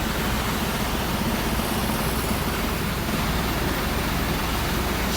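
Heavy diesel truck engine running steadily with a low rumble, with general road noise.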